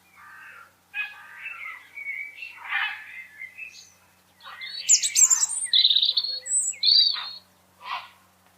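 Small birds chirping and calling in a run of short notes, quieter at first, then louder, higher chirps from about halfway through, with one last call near the end.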